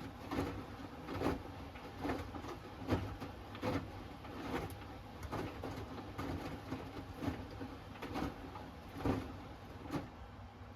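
Hoover Axi 10kg front-loading washing machine tumbling its load during the wash: soft, regular thuds of laundry dropping in the drum, a little more than one a second, which stop near the end as the drum pauses.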